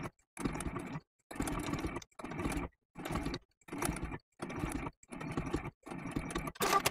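Domestic sewing machine stitching a narrow zigzag around a small appliqué eye. It runs in about eight short bursts with brief stops between them, and there is a louder burst near the end.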